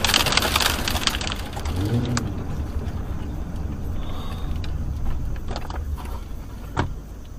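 Steady low engine and tyre rumble inside a car driving slowly, with a few light clicks and one short knock near the end.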